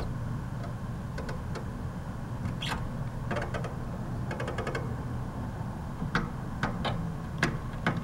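Red-tailed hawk feeding on its prey on top of an air conditioner: scattered sharp clicks and taps from its beak and talons on the metal casing, some in quick runs, over a steady low hum.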